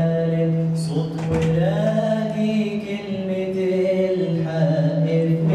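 A young man chanting Quran recitation into a microphone, holding long melodic notes with a slow rise in pitch about a second and a half in.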